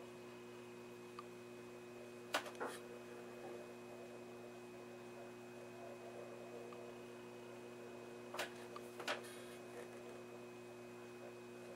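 Steady, faint mains hum under a few short metallic clicks and scrapes as the slider band of a wirewound power resistor and a multimeter probe are handled: two clicks a couple of seconds in, two more near the end.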